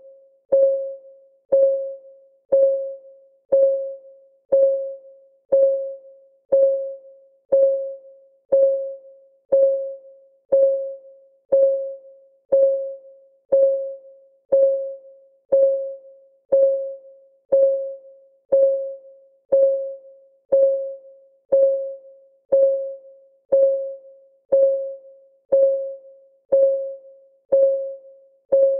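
Countdown timer's ticking sound: one short, pitched tick about every second, each dying away quickly, in a steady even beat.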